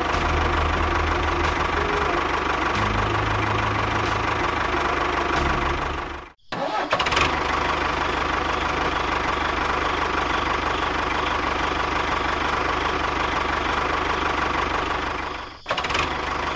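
Tractor engine running steadily at idle. It cuts out abruptly about six seconds in, then starts again, and dips once more near the end.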